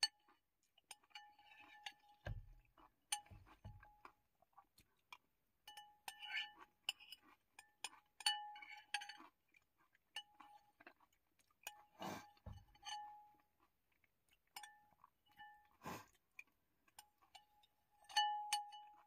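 Faint, irregular clinks of a utensil against a glass container, many with a short ringing note, among soft eating sounds. A few dull low knocks come about two to four seconds in.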